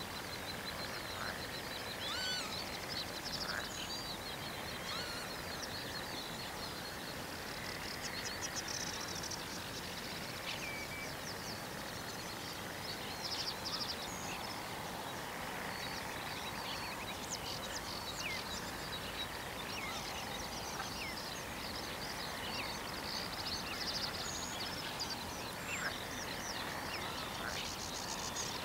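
Black-headed gulls and other birds calling: many short, distant calls scattered over a steady outdoor hiss, with occasional bursts of rapid, high ticking notes.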